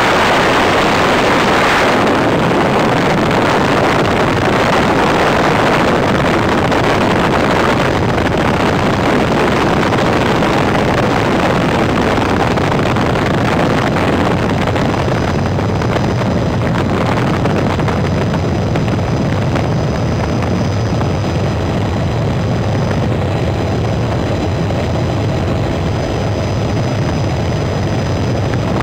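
Helicopter in flight heard from inside the cabin: a loud, steady drone of rotor and engine with a wide rushing hiss, strongest in the first couple of seconds, then settling into a steadier low drone with a faint high whine.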